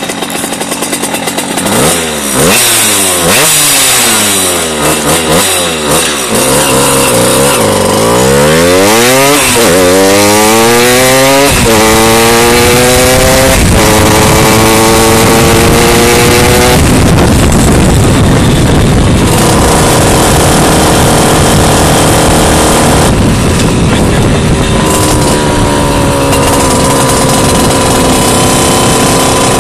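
Tuned Simson S51 two-stroke moped engine with a 70 cc EPJ cylinder, a Dellorto PHBG 19 carburettor and an expansion-chamber exhaust. It is revved up and down several times, then accelerates through the gears, its pitch climbing and dropping back at each upshift.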